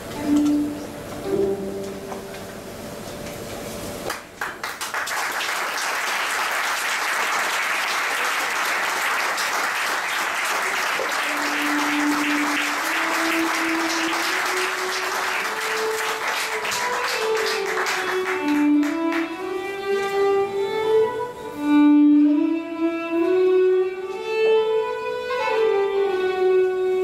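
Solo violin playing a slow melody with gliding notes. About four seconds in, audience applause breaks out and fades away after about fourteen seconds, leaving the violin playing alone.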